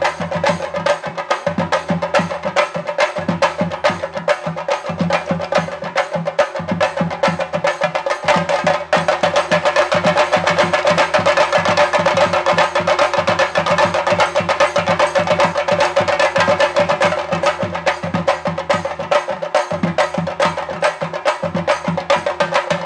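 A chenda melam ensemble of Kerala chenda drums, beaten with sticks in a fast, dense rolling rhythm, with deep bass strokes coming in phrases. The playing grows louder about nine seconds in.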